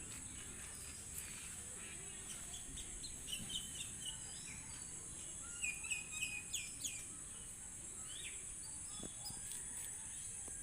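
Birds chirping in short notes, busiest in the middle stretch, over a steady high-pitched insect drone.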